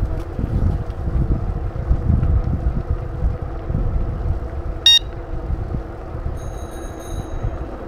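Low, gusty rumble of wind and street noise while riding a bicycle, with a short sharp ding about five seconds in and a high, steady beep lasting about a second soon after.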